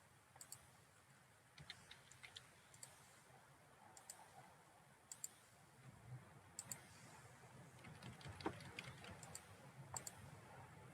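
Faint, scattered clicks of a computer mouse, a dozen or so spread unevenly with a small cluster about two seconds in, over near-silent room tone.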